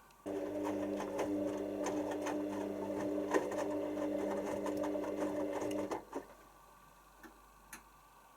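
Hoover washing machine's motor turning the drum with a steady whirring hum and light ticks, then stopping abruptly after about six seconds: the load-sensing stage at the start of a wash cycle. A couple of faint clicks follow.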